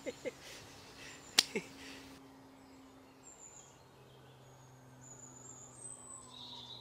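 A man's laugh trails off at the start, then a single sharp click about a second and a half in. After that there is only a faint riverbank background with a low steady hum and a few thin high bird chirps toward the end.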